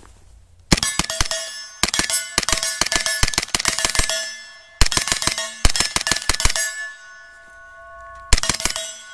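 Sig MPX 9mm short-barrelled rifle firing through a Gemtech Blackside suppressor, 147-grain rounds in rapid strings with short pauses between them, the last string near the end. Each string is answered by an AR500 steel plate ringing with a bell-like clang that holds on after the shots stop.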